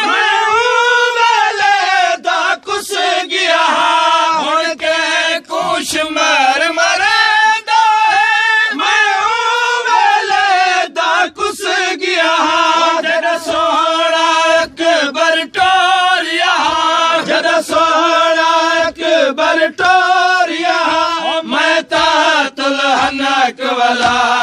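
A group of men chanting a noha, a Muharram lament, together in a loud, continuous, wavering chorus, with frequent sharp slaps of hands striking chests in matam.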